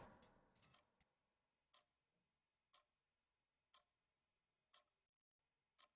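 Near silence with a clock ticking faintly, about once a second.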